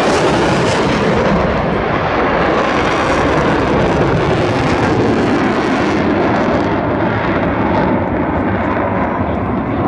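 Loud, steady jet-engine roar from a delta-wing military jet on a display pass, easing slightly near the end as it climbs away.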